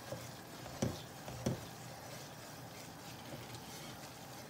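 Wooden spatula stirring gram flour roasting in ghee in a steel saucepan, faintly, with two soft knocks of the spatula against the pan about a second in.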